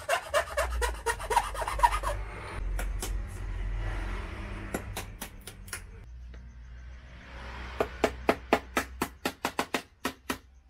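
Background music with a steady low bass and a run of sharp percussive clicks, several a second, coming in near the start and again in the second half.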